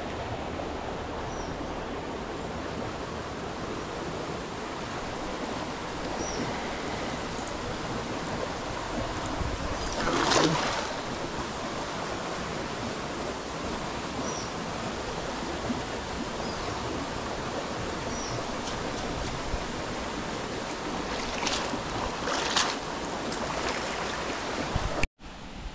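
Steady rush of shallow stream water, with a louder splash about ten seconds in and two shorter splashes near the end.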